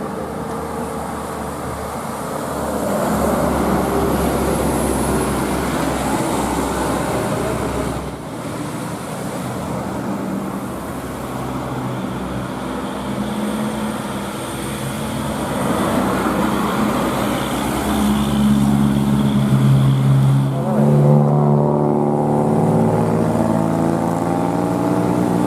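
Motor vehicle engine running amid road traffic noise, the engine's pitch changing in the last few seconds.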